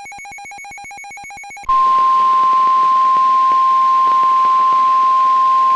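Reecom weather radio alerting: a rapid, pulsing, warbling electronic alarm for the first second and a half or so, then a sudden switch to the broadcast's loud, steady 1050 Hz weather radio warning tone, the signal that an emergency warning is about to be read.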